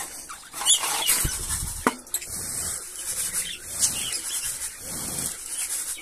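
Budgerigars chirping and chattering in short, irregular calls, with a few knocks and rattles from a wire cage and its feeder tray being handled.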